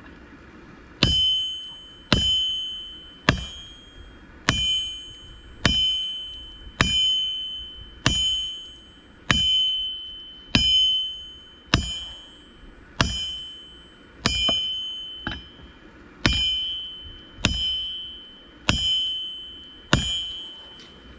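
Hand-forging: a hammer strikes hot camshaft steel on an anvil about once a second. Each blow gives a sharp metallic ring that fades before the next, in a steady run of about seventeen blows starting a second in.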